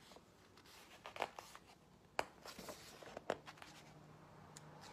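Faint paper rustling and a few light clicks as a picture book is handled and its pages are turned.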